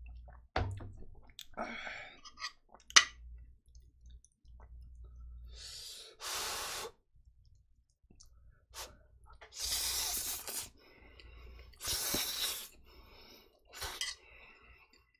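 Close-miked eating: jjapaghetti noodles slurped in four bursts of about a second each, with small clicks of chopsticks and spoon and one sharp knock about three seconds in.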